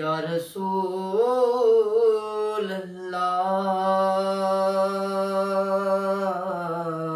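A man singing an Urdu naat solo, with no instruments, in long held notes and a wavering melismatic ornament about a second in.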